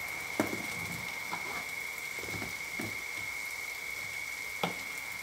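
Chili paste with grilled fish simmering in a wok, a steady sizzling hiss with a thin high tone through it. Two sharp knocks sound, one just after the start and one near the end.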